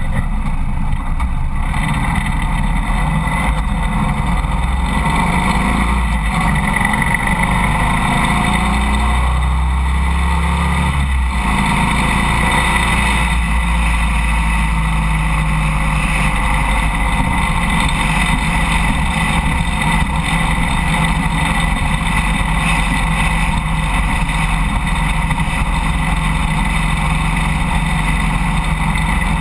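Harley-Davidson Road King motorcycle's V-twin engine running under way over a steady rush of wind and road noise. Its pitch rises as it accelerates for several seconds, dips briefly about eleven seconds in, then holds steady at cruising speed.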